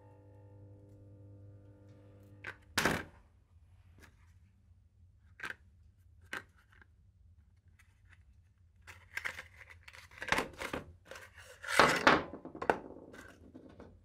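A steady hum stops about three seconds in at a sharp knock, followed by a few separate clicks. Near the end comes a run of crackling and tearing as a small cardboard glow-plug box is opened and the plug taken out, loudest about twelve seconds in.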